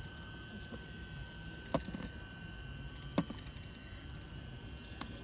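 A small knife paring and cutting a piece of fresh ginger by hand: a few short clicks as the blade cuts through, two clear ones about a second and a half apart, over a faint steady background.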